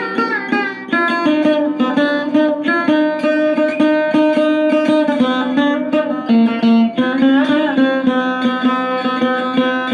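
Saregama Carvaan Mini portable speaker playing music streamed over Bluetooth from a phone: a melody of plucked notes with sliding pitch bends.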